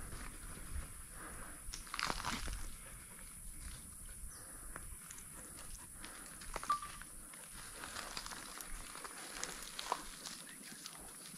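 Footsteps crunching through dry grass and leaf litter, irregular crunches and snaps with the busiest patch about two seconds in, over a steady high hiss.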